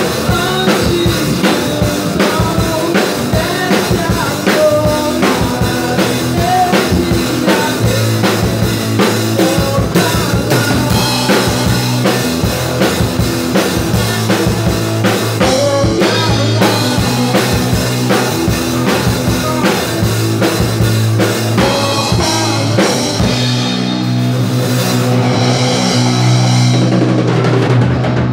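Rock band playing live: a drum kit with bass drum and snare keeping a steady beat over sustained low bass notes.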